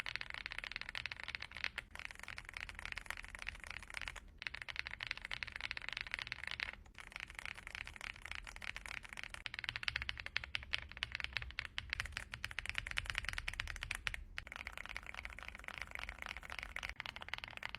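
Rapid typing on a hot-swappable mechanical keyboard fitted with swapped-in switches: a fast, continuous stream of keystrokes, broken by a few short pauses.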